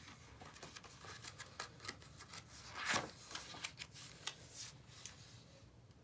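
Pages of a large picture book being turned and handled: soft paper rustles and small clicks, with a louder swish about three seconds in.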